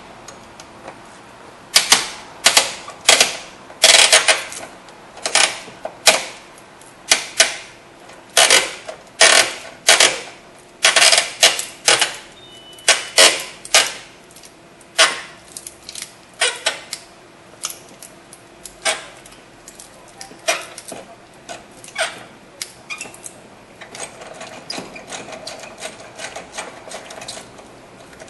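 Hand ratchet clicking in short, quick bursts, stroke after stroke, as it backs out the 8 mm screw that holds the battery in the battery box. The bursts come about one or two a second and grow fainter after the middle.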